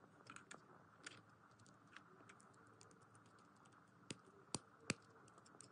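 LEGO Technic plastic parts clicking lightly as pins and connectors are fitted into a beam by hand, with three sharper snaps between about four and five seconds in as pieces are pressed home.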